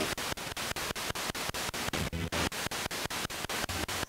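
Ghost-hunting spirit box sweeping through radio stations: a hiss of static broken up evenly about eight times a second, with a brief snatch of fuller sound about two seconds in.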